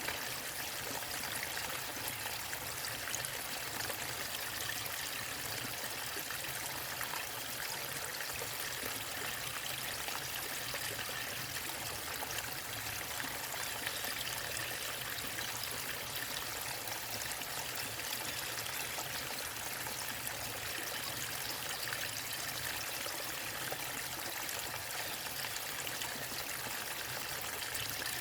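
Water of a small waterfall or stream running steadily: an even, unbroken hiss of flowing water, brightest in the higher range.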